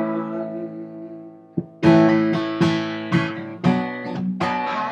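Acoustic guitar strumming: a chord rings out and fades, then after a short gap the strumming starts again in a steady rhythm of about two strums a second.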